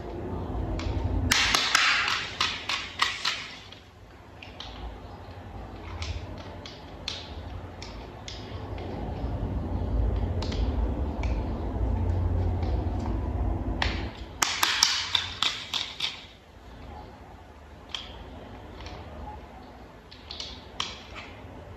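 Toy vehicle parts being handled and fitted together: two bursts of rapid clicking and tapping, a couple of seconds in and again about two-thirds of the way through, with scattered single clicks between them over a low handling rumble.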